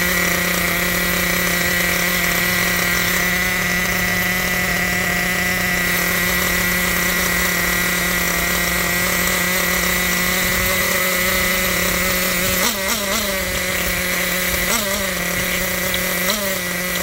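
Kyosho 1/8-scale nitro truggy's small glow engine idling steadily, with three brief throttle blips near the end. The engine is new and not yet broken in, and is being warmed up.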